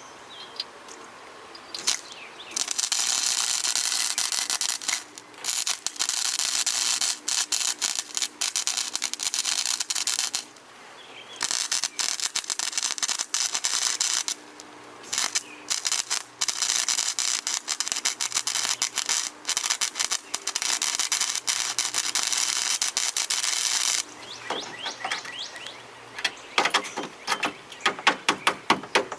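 Wire-feed (MIG) welder laying weld on the thin sheet-metal patch of a rusted hatch seal channel, a steady crackling hiss in runs of several seconds with brief pauses between beads. It stops near the end, giving way to a string of sharp ticks and clicks.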